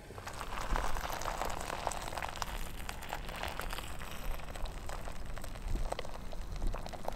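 Steaming hot water poured in a steady stream from a steel container into a foil freeze-dried meal pouch, rehydrating the meal.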